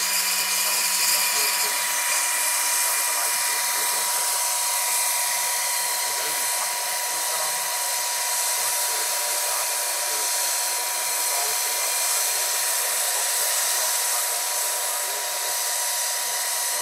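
Electric motor and rotor drive of a large Vario SA-341/342 Gazelle scale model helicopter, with a 2.36 m rotor, running at a steady high-pitched whine as the model lifts off and hovers.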